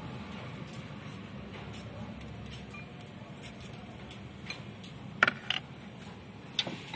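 Knife cutting a cucumber held over a bowl, with cucumber pieces dropping onto fried pempek: a string of faint ticks and clicks. The loudest clicks come as a pair about five seconds in, with one more near the end.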